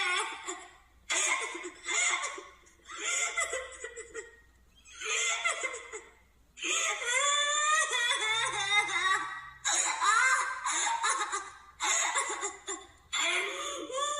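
Toro Inoue's cartoon crying voice: a string of high-pitched sobbing wails, each a second or so long, broken by short pauses.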